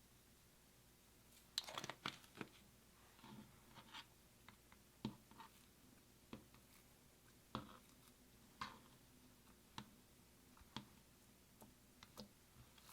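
Slime being mixed by hand: faint, irregular sticky clicks and crackles, a quick cluster about a second and a half in, then single pops every second or so.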